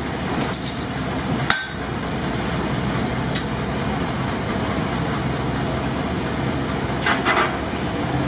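Blacksmith's hammer blows on a punch driven through hot steel to open the eye of an axe head: a sharp ringing strike about a second and a half in, a faint tap later, and a quick cluster of blows near the end, over steady background noise.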